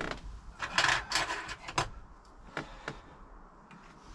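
Clicks, knocks and brief scraping as a dog gate and its stick-on hinge are handled and held up against a motorhome door frame to find the hinge position. The busiest handling comes in the first two seconds, then a few lone clicks.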